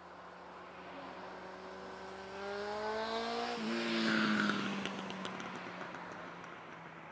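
A motor vehicle engine accelerating past, its pitch climbing steadily and then dropping sharply as it goes by, fading away afterwards.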